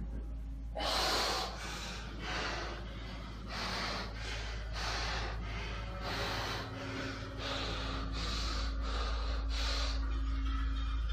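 A man breathing hard while straining through a high-intensity weight-training set: about a dozen heavy breaths, coming quicker toward the end, over a low steady hum.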